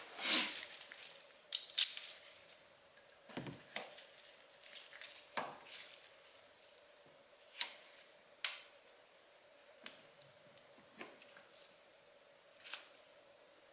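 Scattered light metallic clicks and taps, irregularly a second or two apart, from a 1/4-inch torque wrench on a 17 mm hex shank tightening the plastic oil mesh filter of a Ducati SuperSport engine, over a faint steady hum.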